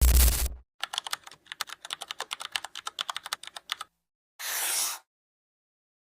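Computer keyboard typing sound effect: a run of rapid keystrokes, roughly ten a second, for about three seconds. It is opened by a short, loud noisy hit with a deep low end and followed by a half-second burst of hiss.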